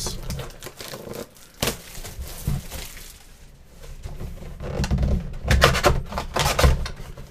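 A shrink-wrapped cardboard trading-card box being handled: its plastic wrap rustles and it knocks as it is turned over. There are a couple of single knocks early, and a busier stretch of rustling and knocks near the end.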